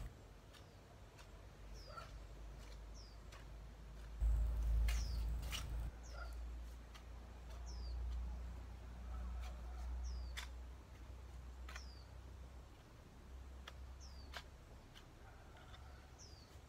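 A hoe chopping into garden soil, giving a sharp knock every few seconds, while a small bird repeats a short, high, falling chirp every second or two. A low rumble swells briefly about four seconds in, the loudest thing heard.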